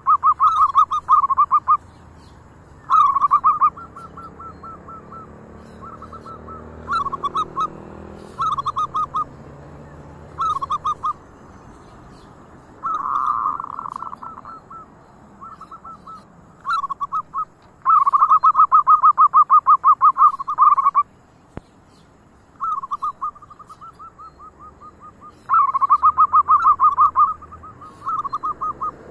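Zebra doves (perkutut) cooing: repeated phrases of quick, rattling coos, several loud ones and fainter ones between them.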